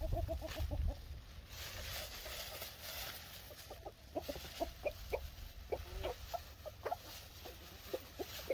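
Chickens clucking in short, repeated calls, busiest from about four seconds in.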